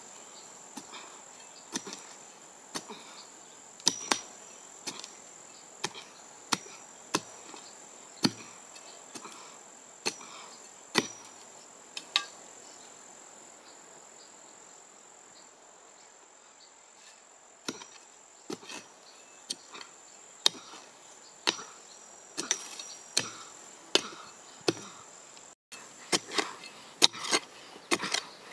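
Long-handled narrow spade stabbing into dry soil, a sharp strike about once a second, pausing for about five seconds in the middle, then striking again, faster near the end. A steady high insect trill runs underneath.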